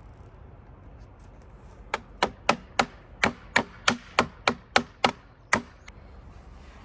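A hammer striking wood, about a dozen sharp blows in quick succession at around three a second, starting about two seconds in and then stopping.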